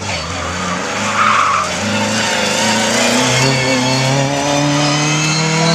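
Mk2 Ford Escort rally car engine revving hard, its pitch shifting in steps as the car is driven through the cones, with a short tyre squeal about a second in.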